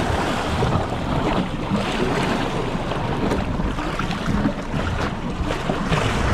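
Steady wind buffeting the microphone, with sea water washing against a small fishing boat's hull.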